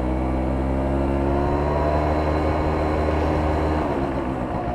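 Derestricted Yamaha BW's scooter engine pulling under throttle while riding, its pitch rising slowly. About four seconds in the throttle closes and the engine note drops away, leaving wind and road rumble.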